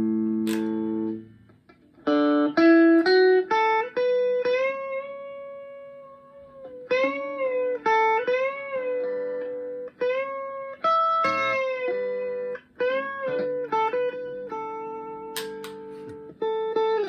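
Chapman ML1 Strat-style electric guitar played dry, with no reverb, through a Blackstar HT1-R valve amp. A chord rings and is cut off about a second in, then a single-note lead line follows with string bends and vibrato.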